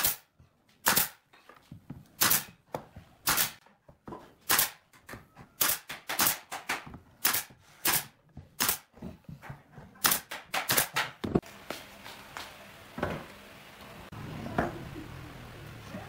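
Nail gun firing brads into a pine frame: a series of sharp shots, one or two a second, some in quick bursts, stopping about eleven seconds in. After that, a couple of duller knocks over a low steady background.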